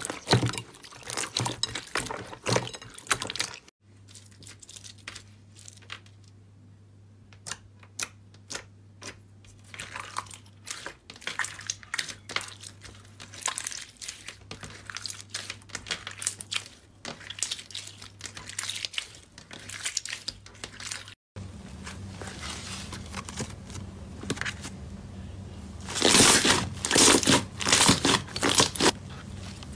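Slime being kneaded, squeezed and stretched by hand: a run of small crackling, popping squishes. Three slimes are heard in turn, with abrupt changes about four seconds and about twenty-one seconds in, over a faint low hum. The loudest, densest crackling comes near the end, from a green fluffy slime being pressed.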